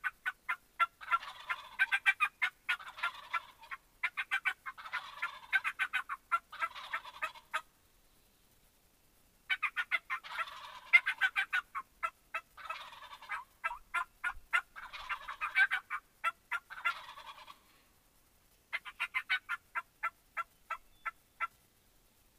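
Wild turkeys gobbling in repeated bouts of rapid rattling calls, with short pauses between the series.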